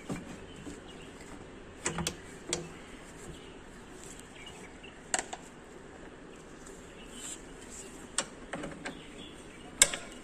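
Scattered sharp clicks and knocks of hand tools and metal parts as the turbo intake pipe on a Hino truck engine is being undone, the loudest knock near the end.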